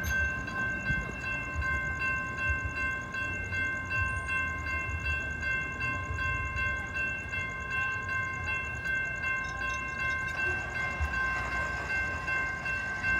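Railroad crossing warning bell ringing continuously at an activated crossing, its gates down and lights flashing for an approaching train. A low rumble runs underneath.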